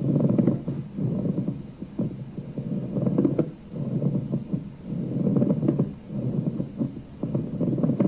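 Recorded pleural friction rub: a dry, crackling rub on each breath in and out, the bursts evenly matched and about a second apart. It is the sign of an inflamed pleural space, where the lung sticks to the chest wall and breaks away from it with each breath.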